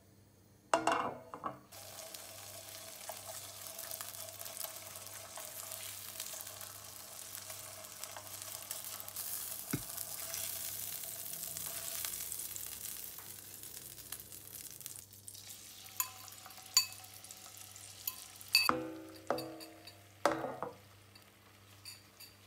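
Butter sizzling and bubbling in a nonstick frying pan over a gas flame while it is stirred, the hiss swelling toward the middle and easing off later. There is a loud metallic clank about a second in, and a few sharp clinks and knocks near the end.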